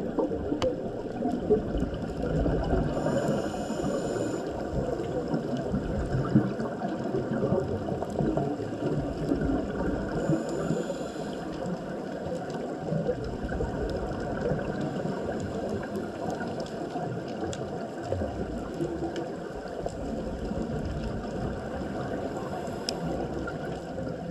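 Underwater ambience picked up by a dive camera's housing: a steady, muffled churning of water. Two short hisses come about three and ten seconds in.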